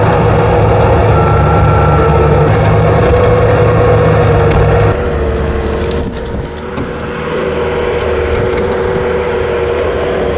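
Skid steer running at working speed with a steady high whine over a heavy engine rumble while it works through brush. About five seconds in, the sound changes abruptly and becomes somewhat quieter with less rumble.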